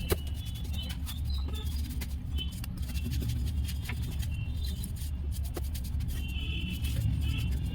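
Mahindra Bolero Neo's three-cylinder diesel engine idling with a steady low drone, with scattered ticks and short high chirps over it: the bad noise put down to a faulty alternator.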